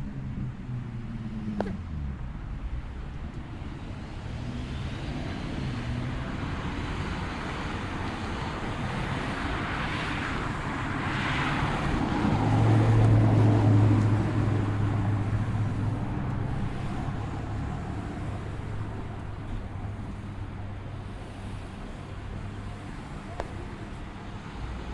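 Roadside traffic: a car approaches and passes, its tyre noise and low engine hum swelling to a peak about halfway through and then fading away, over a steady background of distant road noise.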